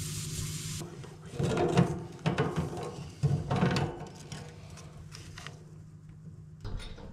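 Propane hissing from a loosened fitting at the heater's gas shutoff valve, cutting off sharply under a second in. Then a run of metal clicks and rattles as a wrench works the brass fitting on the corrugated stainless gas line.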